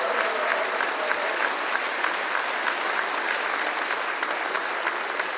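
Studio audience applauding: many hands clapping in a dense, steady patter.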